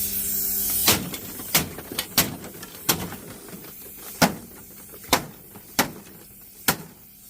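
Gas hissing out of a pierced air conditioning unit, cutting off about a second in, followed by about eight sharp knocks spaced irregularly every half second to a second.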